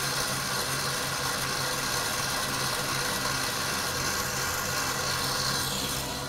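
KitchenAid Commercial stand mixer running at medium speed, its whisk beating egg whites to a froth in the stainless steel bowl: a steady motor hum.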